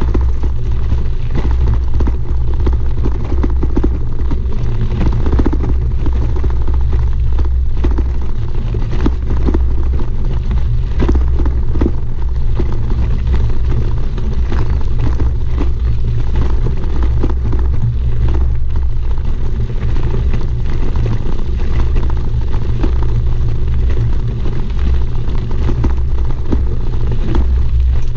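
Bicycle riding over a gravel road: a steady low rumble of wind buffeting the bike-mounted camera's microphone, with a constant crunch and rattle of the tyres on loose gravel.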